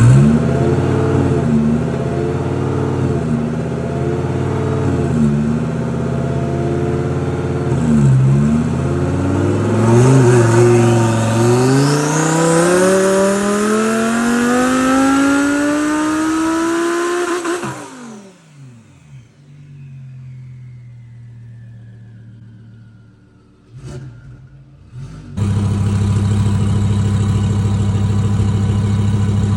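Twin-turbocharged Audi R8 V10 engine pulling hard. The revs dip and recover several times, then climb in one long rising pull of about eight seconds that cuts off sharply. After a quieter stretch with a single click, the engine runs again at a steady pitch.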